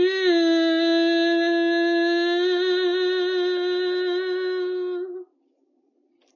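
A woman singing unaccompanied, holding the song's final note for about five seconds at a steady pitch with a slight vibrato coming in halfway, then stopping.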